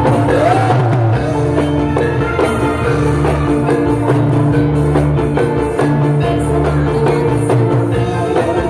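Live Javanese gamelan music played over a stage sound system: bronze gongs and kettle-gongs ringing in steady held tones over kendang hand-drum beats.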